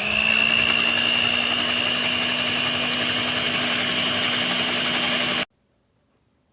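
Electric hand mixer motor running at a steady whine, having just settled at speed. The sound cuts off suddenly about five seconds in.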